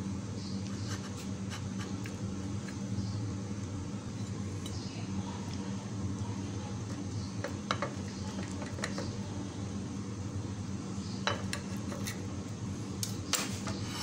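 Table knife clicking and scraping against a ceramic plate as sandwiches are cut into triangles: scattered sharp taps, several close together near the middle and end, over a steady low hum.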